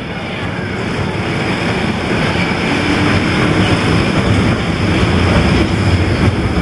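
Elevated electric tram cars rolling along a steel trestle overhead: a steady rumble of wheels on rails and steel girders, growing louder.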